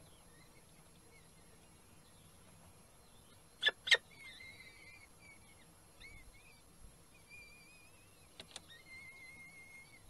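Peregrine falcon chicks giving thin, high, wavering begging cheeps while being fed, the last one held for about a second. Two loud sharp clicks come a little under four seconds in, and two fainter ones about eight and a half seconds in.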